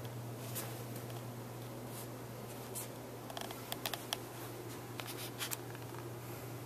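Steady low hum of room tone with a scattering of faint clicks and ticks, several bunched together in the middle: handling noise from a handheld camera being panned.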